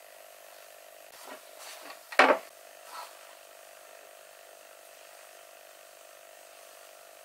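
A pallet-wood rail knocking once against the wooden cabinet frame as it is fitted in by hand, with a few lighter taps and rubs of wood on wood around it. A faint steady hum lies underneath.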